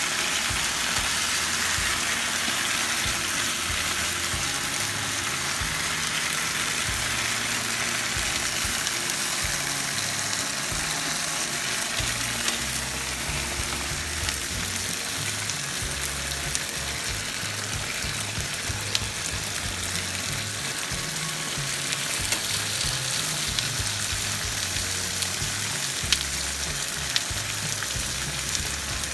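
Breaded minute steaks sizzling steadily in a frying pan on a camp stove, with a few sharp clicks of metal tongs in the second half.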